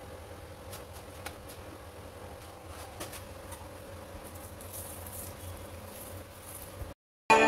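A steady low buzzing hum with a faint hiss and a few soft clicks, which cuts off suddenly near the end.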